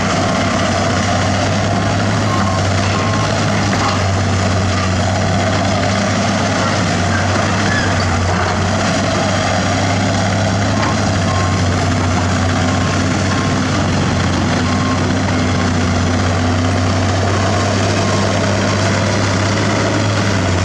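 Heavy diesel construction machinery running steadily, a constant low engine drone with mechanical noise over it, and a faint beeping tone now and then.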